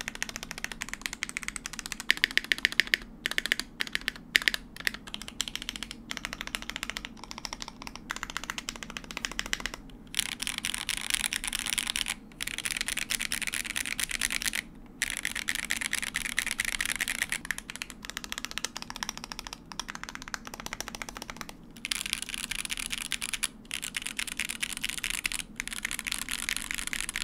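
Fast, steady typing on a mechanical keyboard with unlubed linear switches (Akko Jelly Black and Gateron Box Ink Black v2), a quick run of keystroke clacks broken by a few brief pauses.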